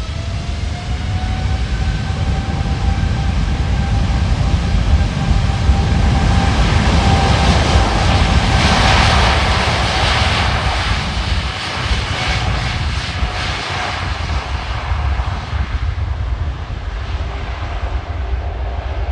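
Boeing 747-8 airliner's four GEnx-2B turbofan engines as the jet passes. The noise swells to a peak about halfway through and then fades, with a steady whine over a deep rumble.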